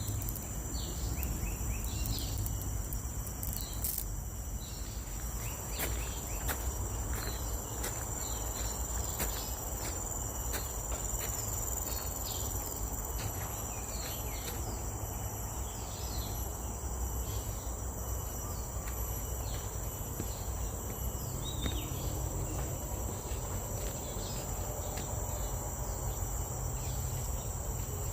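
Insects droning steadily in forest, a continuous high-pitched buzz with scattered short chirps over it and a low steady rumble underneath.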